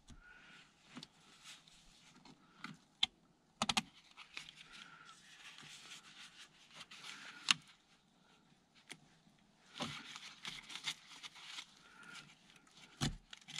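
Water pump pliers working at the plastic quick-connect fitting of an automatic gearbox's oil cooler line: faint scraping and rustling of tool and gloves on the fitting, with several sharp clicks.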